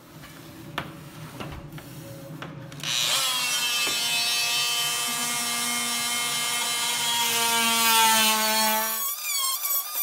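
Oscillating multi-tool cutting into sheetrock, starting about three seconds in with a steady high buzz and stopping abruptly about six seconds later. A few faint clicks come before it, and a warbling tone follows near the end.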